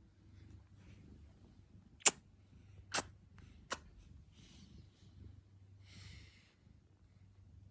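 Three sharp clicks about a second apart, then soft rustles of a hand stroking a cat's fur and the fleece blanket beneath it.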